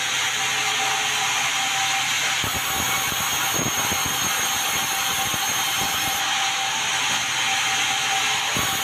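Sawmill saw running steadily through meranti timber: a continuous loud machine noise with a steady whine, its hiss shifting slightly a couple of times.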